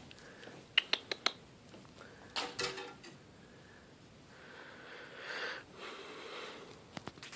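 A few light clicks about a second in, a short clatter about two and a half seconds in, and two more small clicks near the end: a plastic hair clip being handled, dropped and knocked about on the floor. A faint breathy sound runs through the middle.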